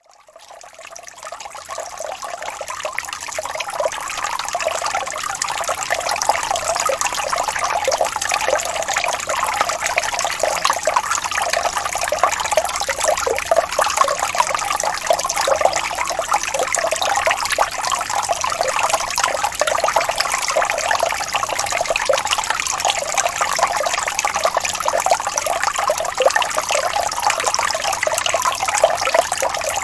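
Water falling from a fountain, a steady continuous sound that fades in over the first few seconds.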